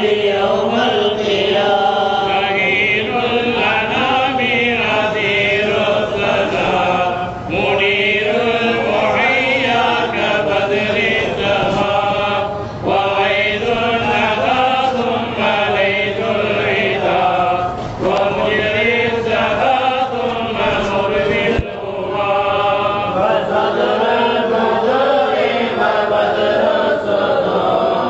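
A group of men chanting Islamic devotional verses together from books, in a continuous melodic chant with short breaks between phrases every few seconds.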